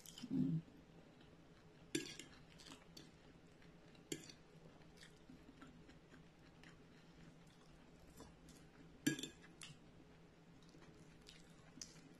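A metal fork clinking against a ceramic plate a few times, with soft chewing in between.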